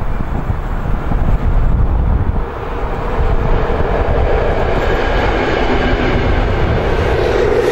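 Rail Feeding diesel locomotive, an ex-DR V100-type, passing close by on its own with no wagons. A low rumble from the wheels and track comes first, then a steady engine drone that grows stronger over the second half as the locomotive draws level.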